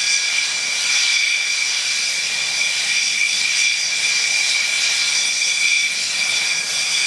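Several Pilatus PC-7 turboprop trainers taxiing, their Pratt & Whitney Canada PT6A turboprop engines giving a steady, high-pitched turbine whine over the propeller noise.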